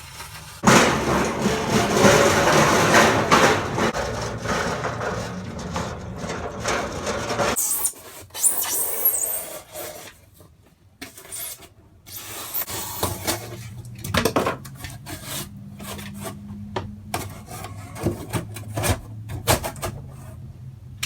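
Rigid polyiso foam insulation board rubbing and scraping, with a loud rasping for several seconds as it is worked, then scattered shorter scrapes and knocks.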